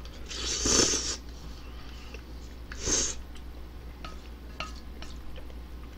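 A person slurping instant ramen noodles and broth off a spoon: two loud slurps, about a second in and about three seconds in, with light clicks of chopsticks and spoon against the pot in between.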